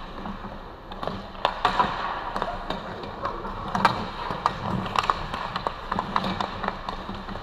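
Ice hockey sticks clacking against each other and against the puck in a scramble at the goal, over the hiss of skates on ice. The sharp clacks start about a second in and come several times a second, irregularly.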